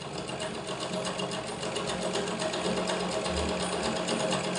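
Overlock (interlock) sewing machine running, serging the edge of a cloth handkerchief; it picks up speed over about the first second, then runs steadily with a fast, even stitching rhythm.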